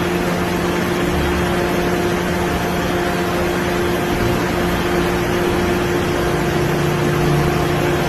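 Steady machine hum with a few constant tones over a noisy background, unchanging throughout.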